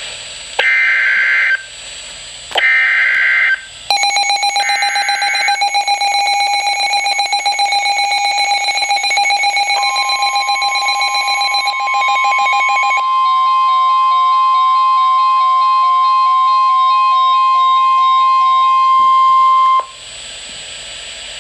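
Emergency Alert System alert signal: three short bursts of screeching SAME header data in the first five seconds. Then pulsing electronic tones with a stepped melody, and from about ten seconds in a single steady warning tone that cuts off abruptly near the end.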